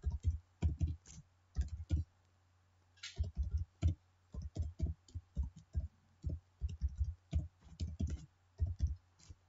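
Typing on a computer keyboard: a string of irregular key clicks, a few keystrokes at a time, with a short pause about two seconds in.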